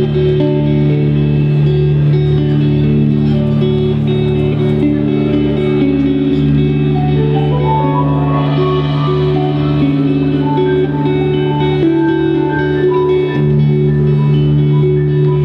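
Live indie pop band playing, electric guitars to the fore over held notes and a steady low pulse of about two to three beats a second.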